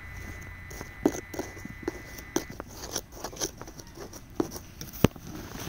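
Narrow metal tool scraping and picking into gritty, gravelly soil: a string of short, irregular scrapes and clicks, with one sharp, loud click about five seconds in.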